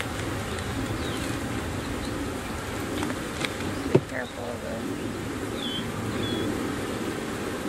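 A mass of honeybees buzzing steadily around an opened hive, with a sharp click about four seconds in.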